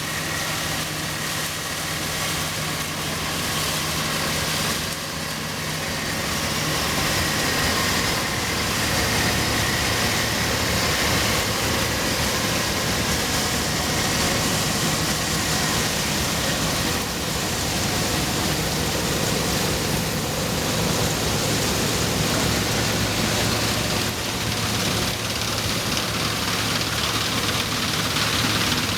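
1971 Dronningborg 900 combine harvester running steadily while threshing, its Perkins 4-154 four-cylinder diesel engine and threshing machinery making a dense, continuous noise.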